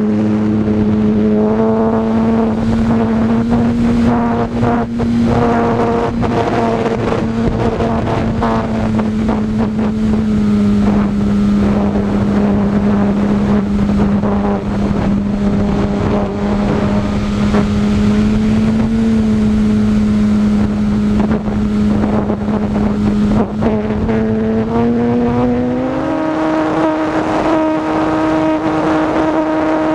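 Brushless electric motor and propeller of an E-Flite Apprentice S 15E RC plane in flight, a steady buzzing whine over rushing air, heard from a camera on the plane. Near the end the pitch rises and stays higher as the throttle is advanced.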